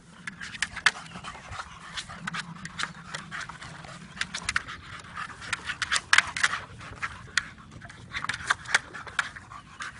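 A dog panting hard while it plays with a hard plastic water-weighted ball toy, with many short, sharp clicks and knocks as it bites and paws the ball.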